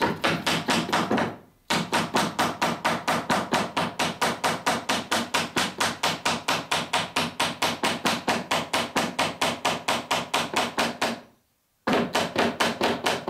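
Small ball-pein hammer striking a copper boat nail in the lap of clinker planking: rapid, even blows, about four or five a second, with a brief pause near the start and another near the end.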